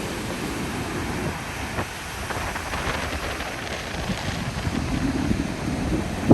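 Wind buffeting the microphone: an uneven, gusty low noise that swells and eases.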